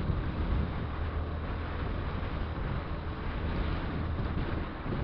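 Honda XRE 190 motorcycle riding steadily along a dirt road: the single-cylinder engine running under a heavy rush of wind buffeting the microphone.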